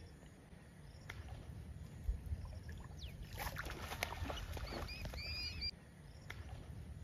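Quiet background with scattered clicks and a brief crackling patch about halfway through, followed by a bird giving a quick run of short, high, arched chirps.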